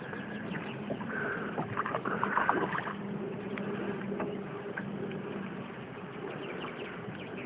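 Water lapping and splashing beside a boat as a hooked rainbow trout swirls at the surface, with brief splashes between about one and three seconds in, over a low steady hum.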